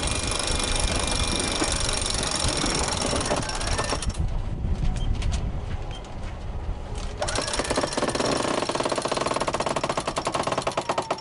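A sheet winch hauling in a sail after a tack, in two runs: a busy grinding for about four seconds, a quieter spell with scattered clicks, then a fast, even clicking from the pawls for the last four seconds.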